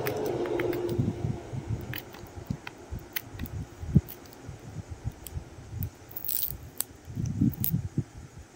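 Fingernails picking and scratching at clear plastic tape on plastic hair-mask tubs: scattered clicks, taps and scrapes with handling thumps, and one sharp click about four seconds in.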